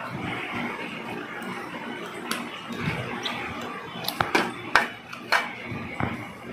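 Gloved hands handling supplies in a stainless steel tray: soft rustling, then a cluster of sharp clicks and taps about four to five and a half seconds in.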